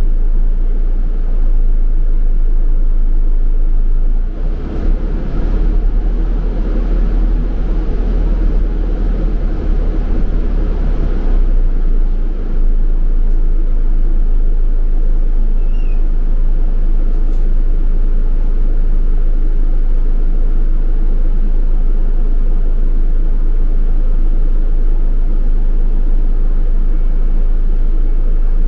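Inside a London double-decker bus: the steady low drone of its engine with road and tyre noise. It swells for several seconds about four seconds in, then runs on evenly.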